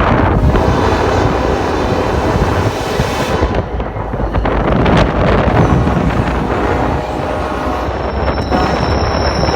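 Wind buffeting the microphone over the rumble and clatter of a passing freight train. A high, steady wheel squeal starts near the end.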